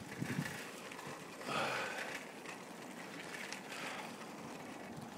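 Steady rolling noise of a moving bicycle, tyres and wind, with faint rattling clicks, picked up by a phone taped to the bike. The noise swells briefly about a second and a half in.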